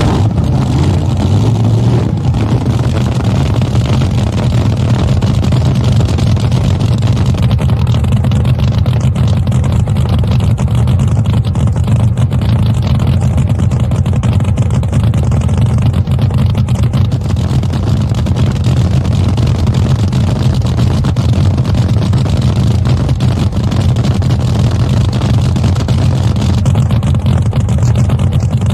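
Supercharged nitromethane-burning V8 of a Top Fuel hydroplane drag boat idling: a loud, steady low rumble that never revs up.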